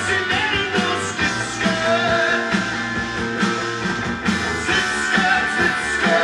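A rock song with guitar and vocals playing from a vinyl record on a Benjamin Elac Miracord 45 turntable, heard through loudspeakers in the room, with a steady beat of about two strokes a second.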